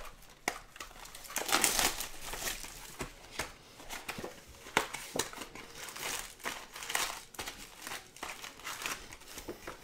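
Plastic wrapping and foil card packs crinkling and rustling in a string of short crackles as a Topps Chrome baseball hobby box is opened and its packs are handled and pulled out.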